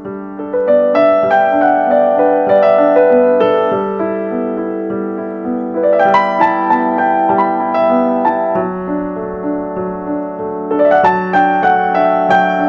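Background piano music: a melody of notes over a held low tone.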